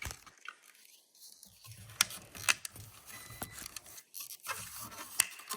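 Hand tools at work on electrical wiring: scattered sharp clicks and snips with light scraping and handling noise. The loudest clicks come about two seconds in and again near the end.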